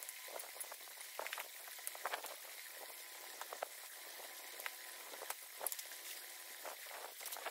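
Water running through a snow-flow gutter, an even trickling fizz with many small scattered crackles and splashes as snow slush melts and is carried along.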